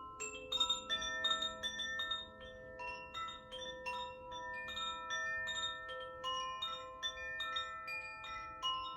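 Makino-style tuned healing chimes being played: a slow, free melody of struck notes, about two or three a second, each ringing on and overlapping the next.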